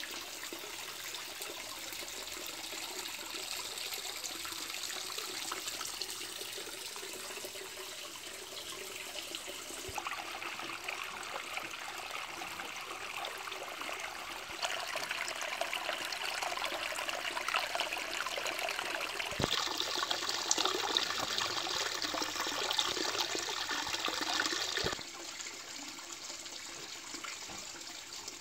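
Water pouring from a pipe outlet down a small stone waterfall into a garden pond, a steady trickling splash. It gets louder about two-thirds of the way through, then drops back suddenly near the end.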